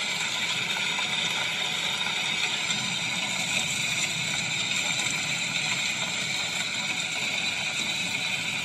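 Steady machine-like noise played through a loudspeaker to get puppies used to noise while they eat; the breeder finds it too weak.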